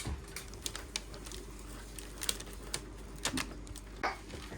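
Scattered light clicks and taps, irregular and about eight in all, over a faint steady background.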